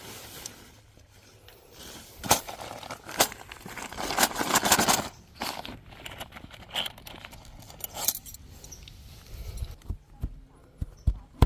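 Tent fabric rustling and crinkling with scattered sharp clicks and knocks while a tent is being pitched. The rustling is loudest about four to five seconds in.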